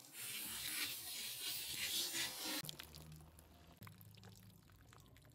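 Liquid splashing and spilling from a filled plastic soda bottle as a knife slashes through it, for about the first two and a half seconds. Then quieter small taps and knocks of plastic bottles being handled and stood on a table.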